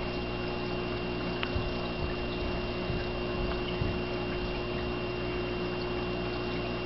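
Aquarium filter and water pump running steadily, with water trickling, a low hum and a thin high whine, and a few faint ticks.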